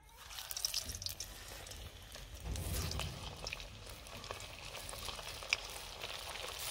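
Chicken kofta balls deep-frying in hot oil in a kadai: a steady sizzle with many small crackles and pops. A low rumble swells briefly about two and a half seconds in.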